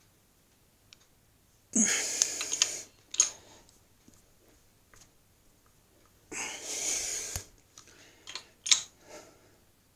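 Two hard, noisy exhalations of effort, about a second each, from a person straining to pump a press tighter by hand; a few short knocks near the end.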